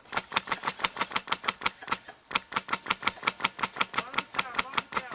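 Airsoft rifle firing a long string of rapid shots, about nine a second, with a short pause about two seconds in.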